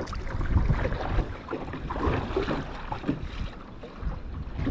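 Wind buffeting the microphone in uneven gusts, over the splash and lap of water around a small kayak being paddled.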